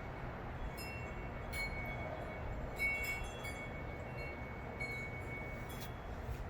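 Light metallic clinks, several short strikes that each ring briefly, as small metal objects are handled or knocked together, over a steady low hum.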